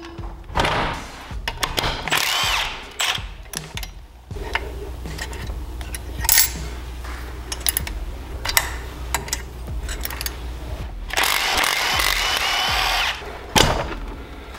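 Cordless Milwaukee M12 Fuel driver with an 8mm socket on an extension, spinning out bolts on a Predator 212 engine in short whining runs: two brief ones near the start and one of about two seconds near the end. Metal clicks and clinks of tools and parts fall between the runs.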